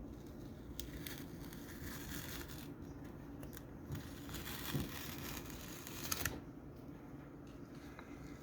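Hand handling noise: scraping and crinkling with several sharp clicks, the loudest pair just after six seconds, then it goes quieter.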